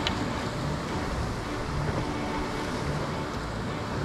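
Sea waves washing steadily against a rocky shore, with wind on the microphone; a faint low hum comes and goes underneath.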